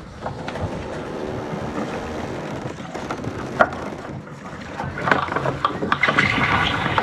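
A junk foresail being lowered: the halyard rope running out and the sail and battens rustling down, with scattered knocks of the rigging that grow busier and louder from about five seconds in.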